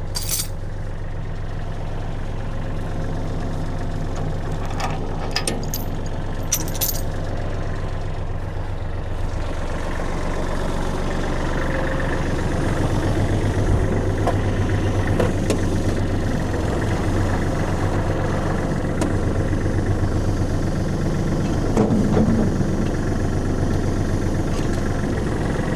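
Kubota tractor's diesel engine running steadily, its low drone growing louder about twelve seconds in, with a few sharp clicks near the start.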